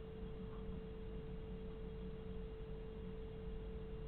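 A steady single-pitched tone, a faint whine, running without change over low background rumble.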